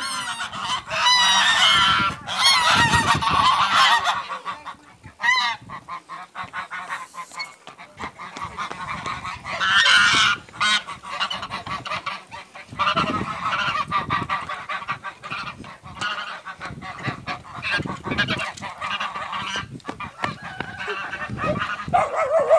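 Domestic geese honking repeatedly, several birds calling over one another, loudest in the first few seconds and again about ten seconds in.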